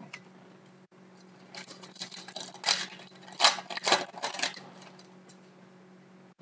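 Trading cards and pack wrapper being handled, giving a run of sharp rustles and flicks from about one and a half to four and a half seconds in, over a low steady hum.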